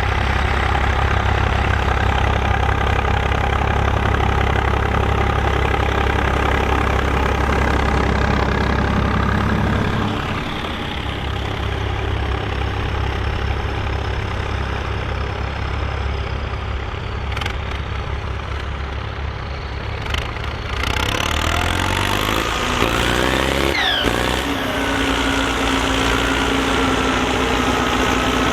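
Volvo BM tractor diesel engines running steadily. About a third of the way in the near engine fades and the sound thins out; later a louder engine comes in, its pitch sweeping up and down before settling to a steady note.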